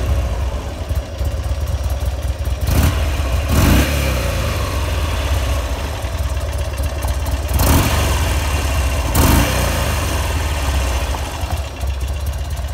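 Buell XB9S Lightning's air-cooled 45-degree V-twin idling steadily, with a few brief louder bursts about three, seven and nine seconds in.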